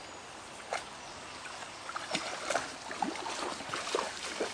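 A dog wading through shallow water, with irregular splashes and sloshes that come thicker from about two seconds in.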